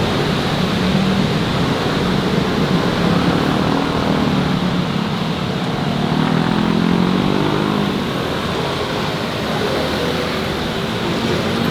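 Steady city street traffic noise, with the engine notes of passing vehicles rising and falling twice.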